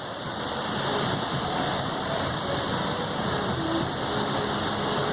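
Waterfall rushing: a steady hiss of falling water, with rain in it.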